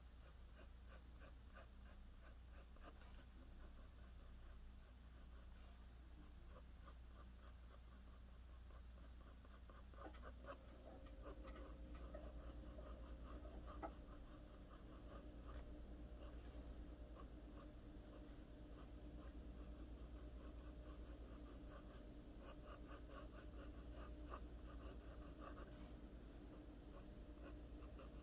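Pencil scratching on paper in many rapid, short strokes, the hatching used to draw strands of hair. Faint.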